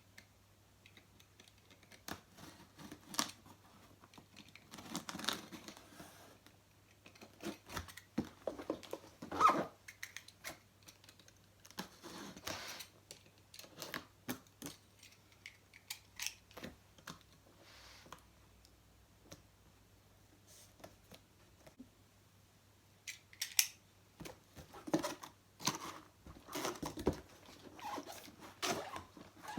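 Cardboard box being opened and its packaging handled: irregular clicks, scrapes and short rustles of cardboard and plastic, in a small room.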